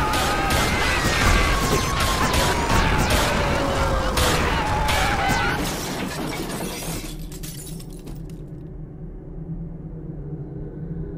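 Sound-effects mix of a violent attack: loud crashes and glass shattering with many sharp impacts, and several falling whistling tones over them. About seven seconds in it dies away to a muffled low hum with the treble cut off, as the feed to the police is lost.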